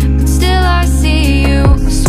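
Pop music with a steady deep bass and an electronic beat; a melody sounds in the middle and a deep falling drum hit lands near the end.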